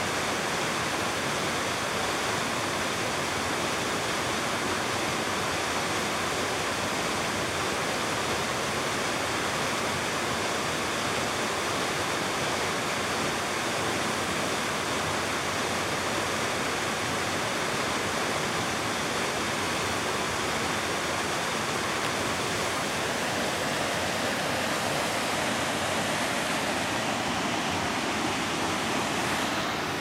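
Waterfall pouring over rocks: a steady, unbroken rush of falling water.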